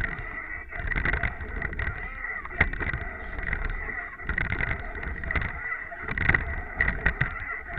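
Water rushing past the bow of a racing rowing shell under way, with wind buffeting the microphone; the noise swells and falls in rough pulses about every second or so, with occasional sharp knocks.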